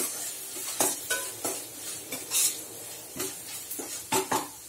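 Chopped onions frying in oil in a stainless steel kadai, sizzling with a steady hiss while they are stirred. A spoon scrapes and knocks against the pan several times at irregular intervals.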